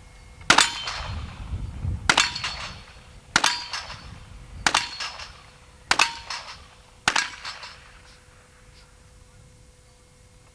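.38 revolver fired six times in a steady string, about one shot every second and a half, each shot followed by a short echo.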